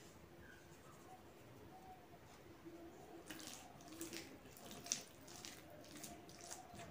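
Faint wet squishing and light clicks of fingers mixing soft, starchy phena bhat rice with salt by hand on a metal plate, more frequent from about three seconds in, with one sharper click near five seconds.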